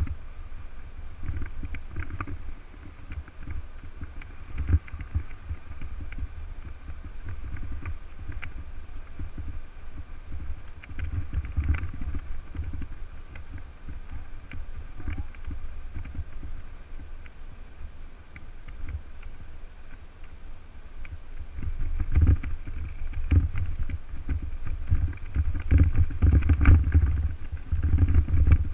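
Low wind rumble on a handlebar-mounted camera, mixed with the rattle and scattered knocks of a mountain bike riding over rough, cracked pavement. It grows louder and rougher near the end as the tyres go onto loose gravel and dirt.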